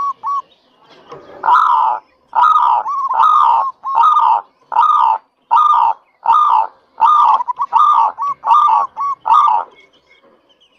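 Zebra dove (perkutut) singing: a few quick cooing notes at the start, then after a short pause a steady run of about a dozen loud, ringing coos, roughly one every 0.7 seconds, stopping shortly before the end.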